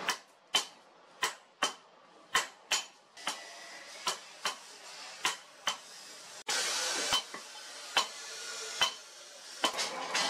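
Hand hammer striking red-hot steel on an anvil, about one or two ringing blows a second at an uneven pace. After a cut about two-thirds of the way through, a steady rushing noise runs under the blows and fades near the end.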